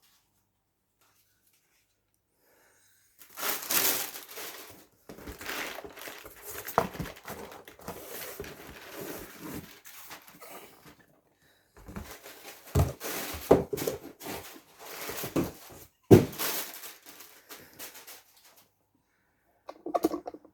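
Parcel packaging being opened by hand: crinkling and rustling of wrapping with tearing and occasional knocks, in two spells starting about three seconds in.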